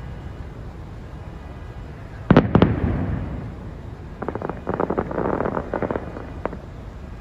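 Aerial fireworks: two loud shell bursts a fraction of a second apart about two seconds in, with a rolling tail, then a rapid crackle of many small pops for about two seconds from a crackling star shell, and one last pop near the end.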